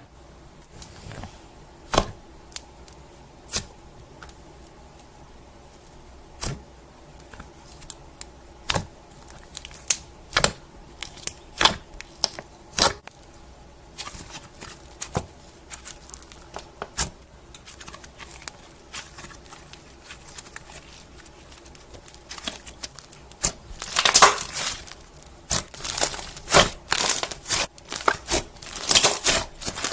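Slime being handled, squished and stretched, with scattered sharp pops and clicks as air pockets burst. The popping thickens into dense crackling over the last several seconds.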